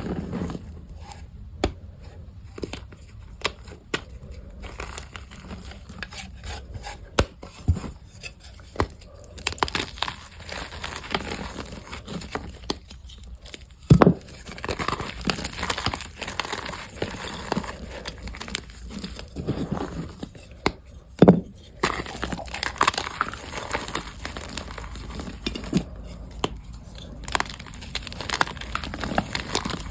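Reformed gym chalk blocks being crushed by hand: a dry crunching and crumbling with many irregular sharp cracks, and a couple of much louder snaps as pieces break.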